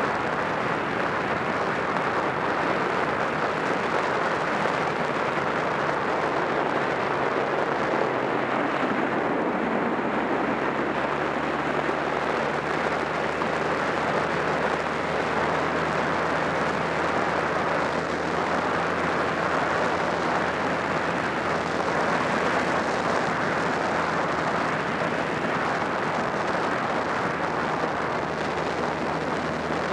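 Wind noise on the microphone at road speed over the steady low drone of a Honda Rebel 250's air-cooled parallel-twin engine cruising at a constant speed.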